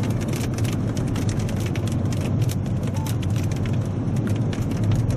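Hail hitting a car, a dense irregular stream of sharp clicks, over the steady low rumble of the car on the move.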